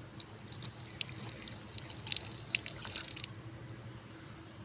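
Water running from a plastic tap on a PVC pipe and splattering onto bare dirt, with a crackle of drips and splashes. It cuts off suddenly about three seconds in.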